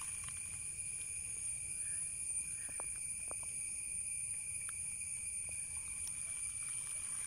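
Steady high-pitched drone of insects at two unchanging pitches, with a low rumble underneath and a few faint ticks.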